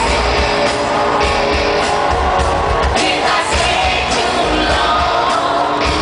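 A live pop-rock band plays through an arena sound system, with a heavy bass beat pulsing under a woman's singing voice.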